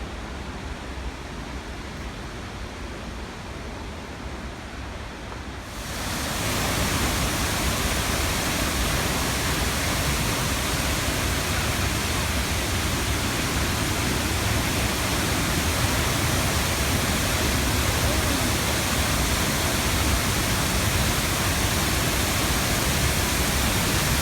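Waterfall: a steady rush of falling water, which jumps sharply louder about six seconds in and stays that way.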